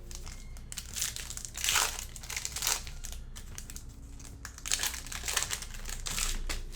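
Foil trading-card pack wrapper crinkling as it is torn open and handled, in two spells of crinkling.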